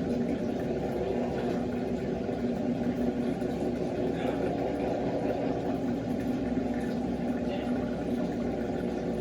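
Electrolux LF90 top-loading washing machine running its cycle, a steady motor hum with a couple of held tones.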